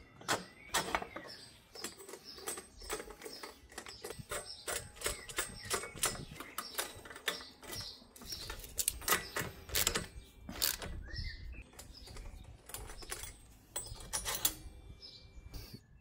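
Irregular metallic clicks and knocks of hand tools and engine parts being handled while the cylinder head is off for a squish-gap measurement.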